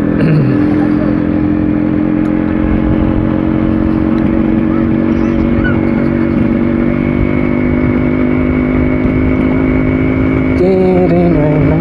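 Yamaha RX100's single-cylinder two-stroke engine running steadily while cruising at about 40 km/h, with a put-put exhaust note that the rider takes as a sign of too much petrol, a rich mixture.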